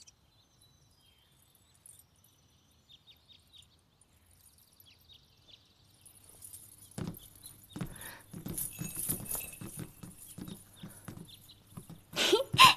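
Horse hooves clip-clopping, pulling a carriage, starting about seven seconds in after a stretch of near silence. A short, louder pitched cry comes near the end.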